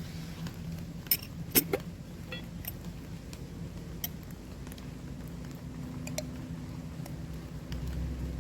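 Cooking utensils clinking and tapping a few times, the sharpest knock about a second and a half in, over a steady low background.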